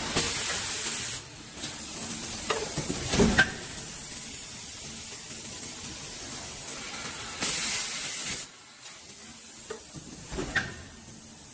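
Hot forging press line running: a steady hiss with two loud bursts of spraying hiss about a second long, one at the start and one about seven and a half seconds in, and a few short metal clanks in between.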